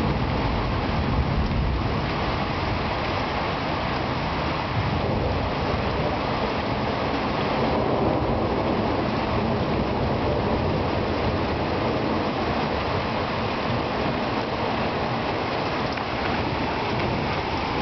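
Heavy rain falling in a steady downpour, an even hiss with no thunder clap.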